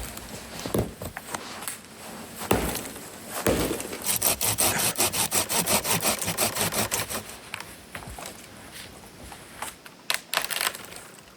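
Hand saw cutting through wood in quick, even strokes for about three seconds in the middle, after a few knocks of wood being handled and set in place.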